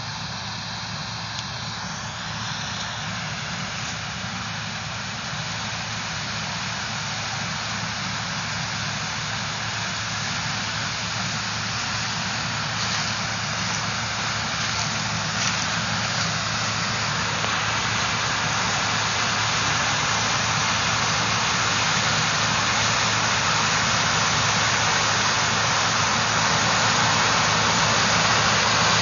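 Heavy farm harvest machinery running steadily: a low engine hum under a broad rushing noise, growing gradually louder throughout.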